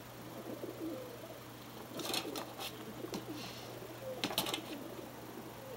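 Pigeons cooing on a television's soundtrack, heard through the TV speaker, with two short bursts of clattering about two seconds and four seconds in.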